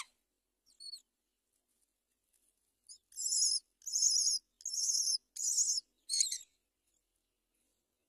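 Great myna nestlings begging while being fed: five high, raspy bursts of calling, each about half a second long, in quick succession. A short sharp sound comes right at the start, and a faint call just before the first second.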